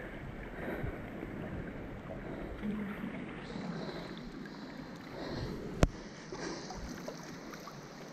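Sea water lapping and sloshing around a camera held at the surface, a steady grainy wash of small waves. A single sharp click a little before six seconds in stands out as the loudest sound.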